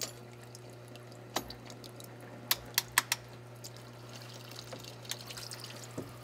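Water trickling and dripping from a cut hot tub bleeder hose, over a steady low hum. Several sharp clicks, most of them in a quick cluster around the middle, as locking pinch pliers work at the hose.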